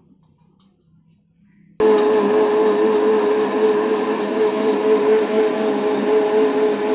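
Electric mixer grinder blending pineapple pieces with sugar and water: near silence while the motor is stopped, then it switches on abruptly a little under two seconds in and runs steadily at full speed with a constant whirring hum.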